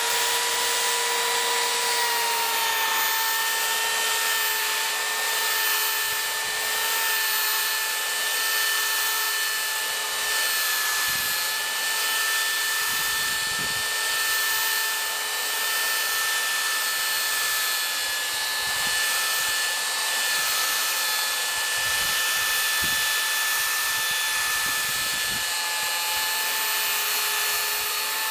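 Handheld electric sander running continuously with a steady motor whine and a rasping hiss as it sands a wooden window sash patched with epoxy. The pitch settles slightly lower about two seconds in.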